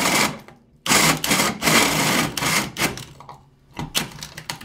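Heavy-duty cordless drill driving a 4.5-inch hole saw through plywood, cutting in bursts: a long run of about two seconds, then several short jabs of the trigger near the end as the high-torque cut bites.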